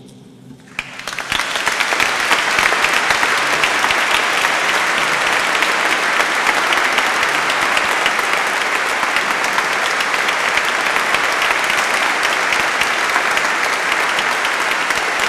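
Congregation applauding: sustained clapping that starts about a second in, builds quickly and then holds steady.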